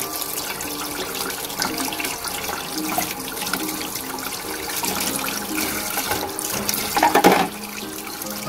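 Kitchen tap running into a stainless steel sink, the stream splashing over hands and a piece of meat being rinsed, briefly louder about seven seconds in.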